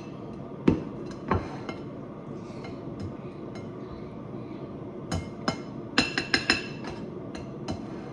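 A serving spoon knocking and clinking against a pot and plate while rice is being dished up. There are two sharp knocks about a second in, then a quick run of ringing clinks a little past the middle.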